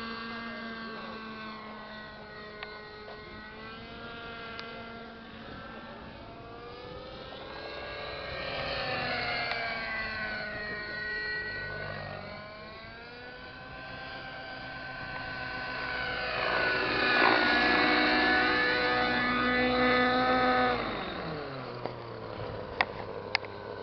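Radio-controlled model helicopter in flight, its rotor and motor whine rising and falling in pitch as it manoeuvres, loudest as it passes close. Near the end the pitch drops steeply as it sets down and the rotor slows.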